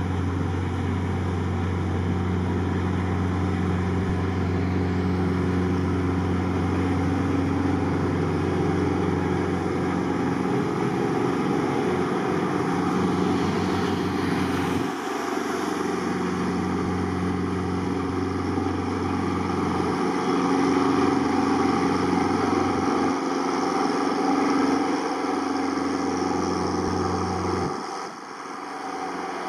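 Engine of a small work tugboat running steadily as it passes towing a barge, with the wash of its wake. The deepest part of the engine note drops away about halfway through, and the sound dips briefly near the end.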